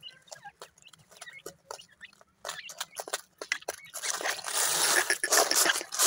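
Francolin chicks and hen pecking at feed on a dusty floor: quick, irregular clicks, with a few soft chick peeps in the first seconds. About four seconds in, a louder rustling hiss takes over as a hand sweeps feed across the dirt.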